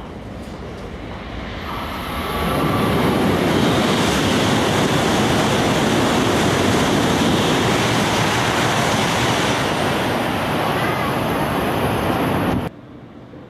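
E5-series Shinkansen passing through the station at high speed without stopping: a rushing roar of air and wheels that builds about two seconds in, holds loud and steady while the train streaks past, then cuts off suddenly near the end.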